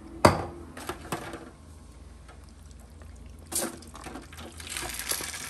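A sharp knock, then a few light handling knocks. Near the end, wet chicken pot pie filling slides from a plastic bowl into a foil pan resting on a still-warm burner and starts to sizzle.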